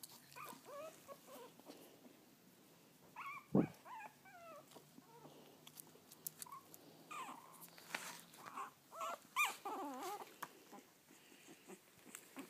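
Young puppies whimpering in short, high, wavering calls, in clusters about a second in, around three to four seconds in, and again from about seven to ten seconds in. A single thump about three and a half seconds in is the loudest sound.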